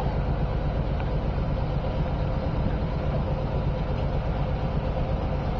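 Vehicle engine running steadily with an even low hum.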